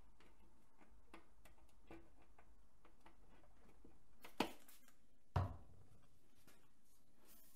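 Two sharp knocks about a second apart, a little past the middle, amid faint scattered clicks of parts being handled.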